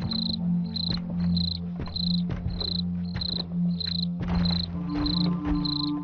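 Horror-soundtrack ambience: a cricket chirping in a steady rhythm, about one high chirp every half second, over a low droning music bed with scattered clicks. A higher held note joins the drone near the end.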